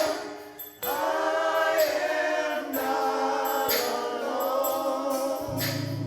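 Gospel choir singing long held notes with accompaniment, with a brief dip about half a second in; a low steady bass note comes in near the end.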